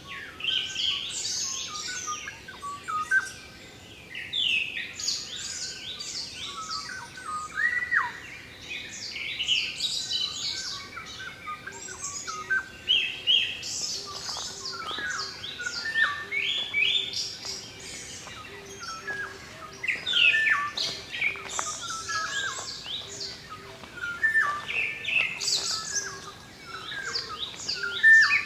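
Several wild songbirds calling and singing at once: a dense chorus of quick chirps and short whistled notes, overlapping throughout.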